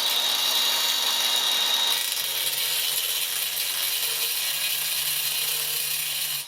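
Electric grinder running at full speed with a high steady whine, which weakens about two seconds in as the sound turns rougher. Switched off at the very end, so the level drops suddenly.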